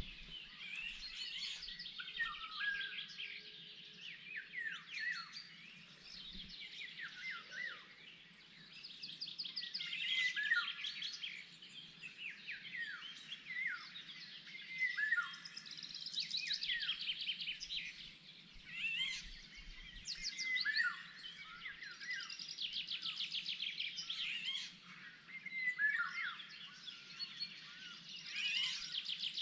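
Several songbirds singing, among them a Eurasian golden oriole with fluty whistled phrases that slide downward. Fast trilled song phrases repeat every few seconds above them.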